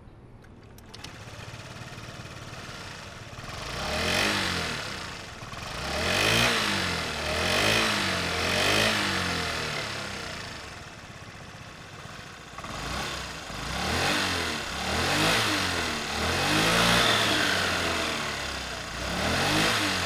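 2023 Honda Metropolitan 49cc scooter's single-cylinder four-stroke engine and exhaust, idling on the stand and blipped repeatedly. There are four throttle blips, a few seconds of steady idle, then five more blips, each pitch rising and falling back to idle.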